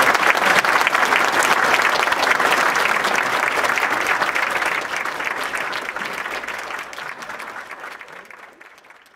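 Audience applauding, a dense clatter of many hands clapping that gradually fades out over the second half.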